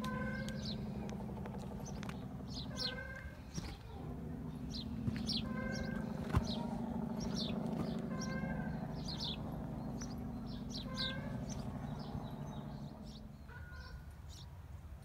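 Birds calling again and again, with short sharp calls every second or so, over a steady low hum that fades out near the end.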